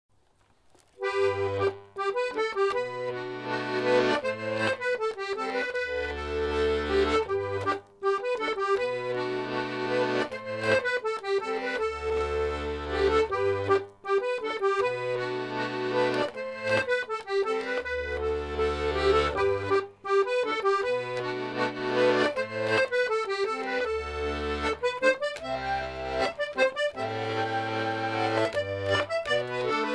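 Melodeon (diatonic button accordion) playing a traditional tune, a melody over a bass accompaniment, starting about a second in, with brief breaks between phrases.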